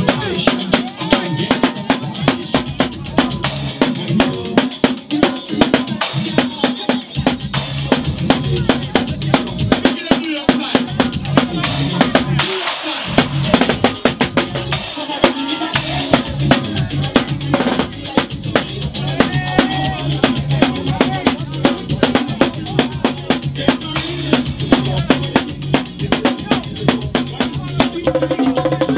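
Drum kit played live with sticks: rapid snare and drum hits and cymbal crashes over a steady bass line of playing music.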